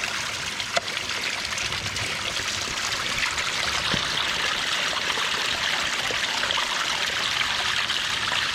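A small stream running, a steady rush and trickle of water that grows a little louder about three seconds in.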